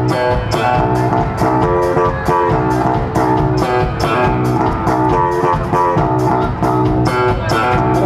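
Live band playing amplified music, guitar to the fore over bass, with drums keeping a steady beat.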